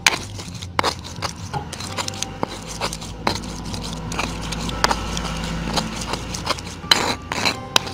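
Pestle grinding wet spice paste on a flat stone mortar (cobek), with irregular knocks and wet scraping strokes of stone on stone. The paste is nearly ground smooth.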